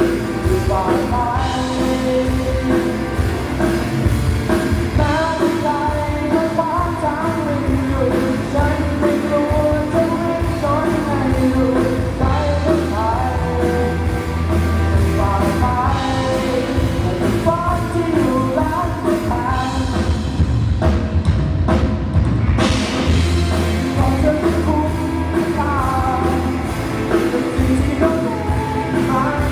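Rock song with a lead singer, bass and drum kit, played loud over a PA during a sound check. The top end thins out briefly and then a cymbal crash rings about two-thirds of the way through.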